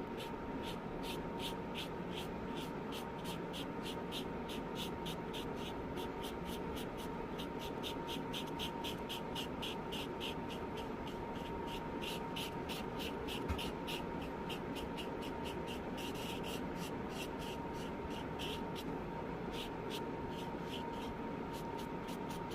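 Brush pen strokes on sketchbook paper: many short, quick scratchy strokes, a few per second and unevenly spaced, over a steady low hiss.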